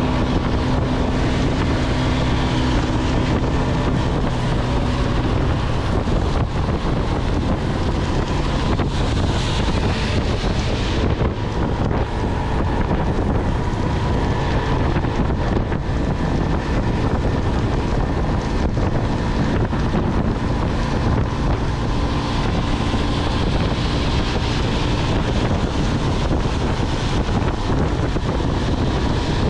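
Steady rush of wind over the microphone while riding a Motolux MTX 125 motorcycle at highway speed on a wet road. The motorcycle's 125 cc engine hums low underneath, clearest in the first few seconds.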